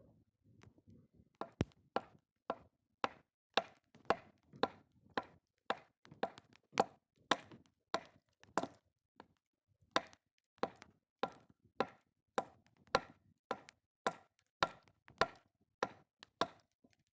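Steady, even chopping: a blade striking down onto wood in sharp knocks about two a second, with a couple of brief pauses.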